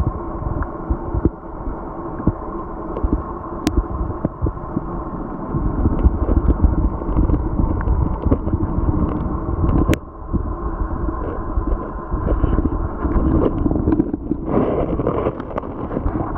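Underwater sound picked up by a submerged waterproof camera: a steady low rumble with a faint hum and many small clicks, and two sharp clicks about four and ten seconds in.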